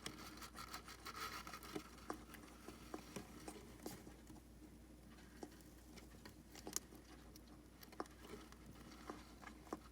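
A sleeping pet hedgehog snoring: faint, irregular little clicks and soft breathy puffs, with a longer hissing breath about a second in and another at the very end.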